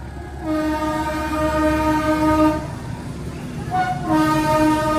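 Diesel locomotive of a freight train sounding its horn in long steady blasts as it approaches. One blast lasts about two seconds and a second begins near the end, over a low engine rumble.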